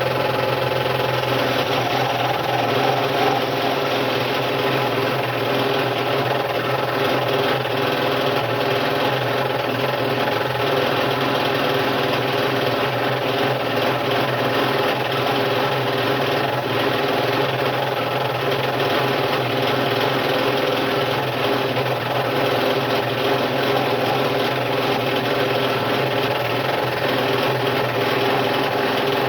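Scroll saw running steadily, its blade reciprocating as it cuts out a wooden puzzle piece.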